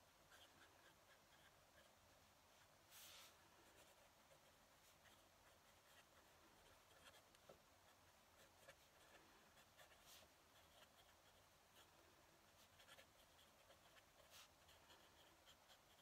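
Fountain pen nib scratching faintly across paper in writing strokes, with a few brief louder strokes.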